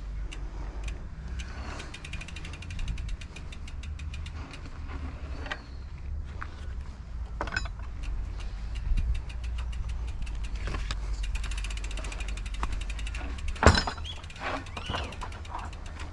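Mountain bike riding on a dirt road: a steady low rumble of wind and tyres, with fast clicking through most of it and a sharp knock near the end.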